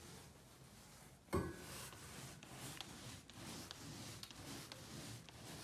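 Faint rustling and light ticks, with one sharp knock about a second and a half in that rings briefly.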